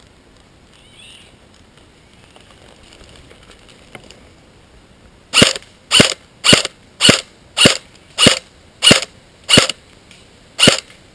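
Airsoft electric rifle (AEG), a G&G CM16 Raider, firing single shots about five seconds in: nine sharp reports about two a second, with a slightly longer gap before the last, laid down as covering fire.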